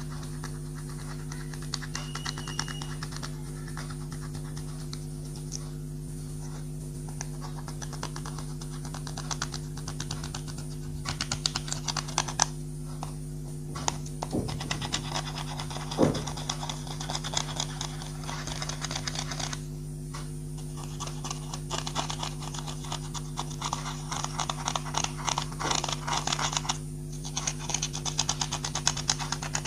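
Clear slime being squished and mixed, giving rapid sticky clicks and crackles in bursts that come and go, with one louder pop about halfway through. A steady low hum runs underneath.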